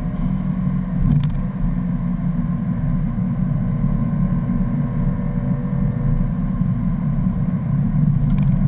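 In-cabin engine and road noise of a 2011 BMW M3's V8 under way on a race track, a steady low drone.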